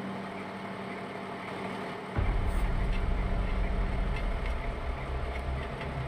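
A steady low hum, joined suddenly about two seconds in by the deep rumble of an engine running nearby, which carries on.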